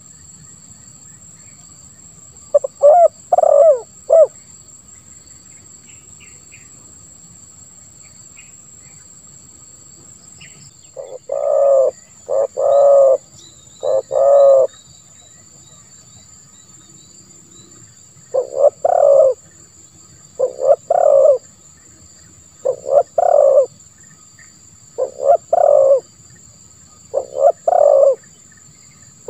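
Spotted dove (tekukur) cooing: short phrases of a few low coos, a group about three seconds in, three longer notes near the middle, then a phrase every two seconds or so in the second half.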